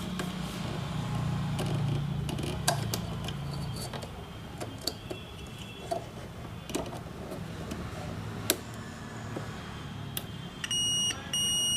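Faint scattered clicks and taps of multimeter probes on a circuit board over a low hum, then near the end a digital multimeter's continuity buzzer sounds a steady beep, briefly broken, then on again: the zener diode across the probes is shorted.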